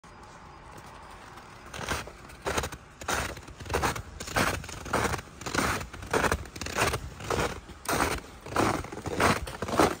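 Footsteps crunching in snow at a steady walking pace, about one and a half steps a second, starting about two seconds in.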